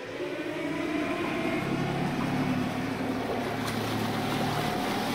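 A Pegasus 50's Oceanvolt electric drive motor run up to full power: a hum and whine that rise in pitch over the first second, then hold steady over the churning of the propeller wash.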